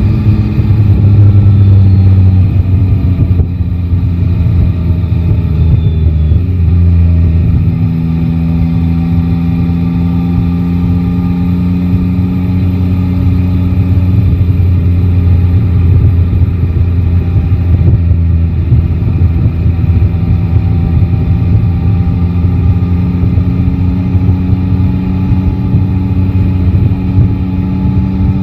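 Inline three-cylinder motorcycle engine under way, heard from the rider's seat. It drops in pitch over the first few seconds as the throttle eases off, then holds a steady cruise, its pitch creeping slowly upward.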